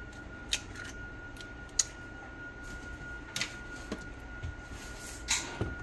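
Light scattered clicks and taps of an egg being cracked and emptied into a bowl and the shell handled, over a faint steady high-pitched tone.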